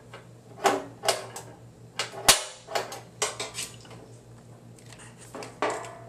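A centre punch snapping sharply into the stainless steel top of a water cooler once, about two seconds in. Around it come lighter metallic knocks and clatter from the steel top being handled.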